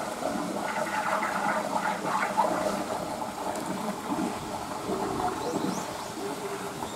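Water running and gurgling steadily in the pool of an American beaver enclosure.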